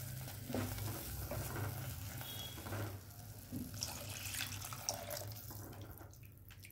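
Water poured from a cup into a pan of hot tomato and cashew masala paste, splashing steadily and then tapering off, while a spatula stirs it in to thin the gravy.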